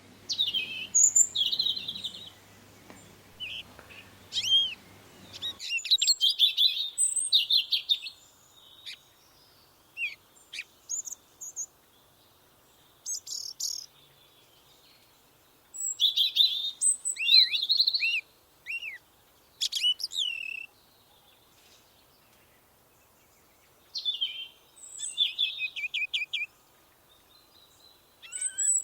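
Songbirds singing: short bursts of high chirps, trills and downward-sweeping whistled notes, separated by brief pauses.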